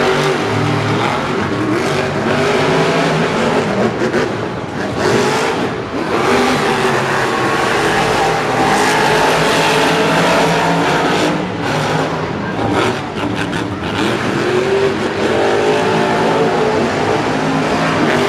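Monster truck engines, supercharged V8s, revving hard and running loud as the trucks race, the pitch rising and falling repeatedly.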